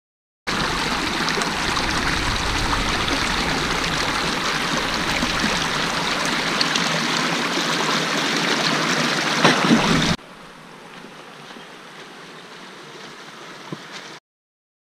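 Shallow mountain stream running over rocks close by, a steady rush of water. About ten seconds in it cuts to a much quieter steady flow of water.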